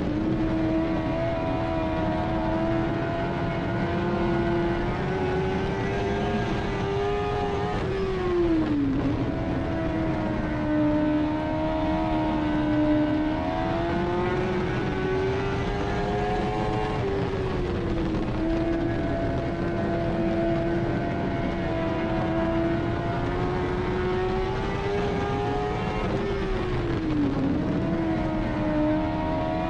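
Dirt-track race car engine heard from inside the cockpit, running hard at a steady pitch and dropping sharply about every nine seconds as the driver eases off for the turns, then climbing back up. Rumble and dirt noise sit underneath throughout.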